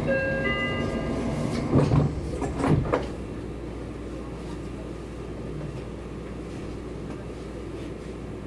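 Train doors closing: a chime of several steady tones for about a second and a half, then the sliding doors thudding shut, followed by the steady hum of the stopped commuter train.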